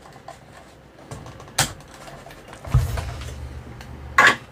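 Three short, sharp clicks and knocks of small components and tools being handled on a workbench, the last the loudest. A low hum comes in about halfway through.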